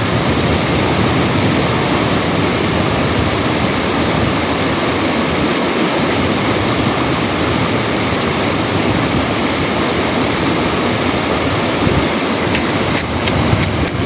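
Fast mountain river rushing over rocks and rapids: a loud, steady wash of flowing water.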